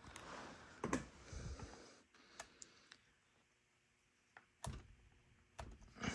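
Scattered faint clicks and light knocks of handling, with a soft rustle in the first couple of seconds.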